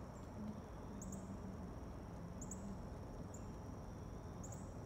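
Faint outdoor ambience of insects: a steady high-pitched drone with short double chirps repeating every second or so.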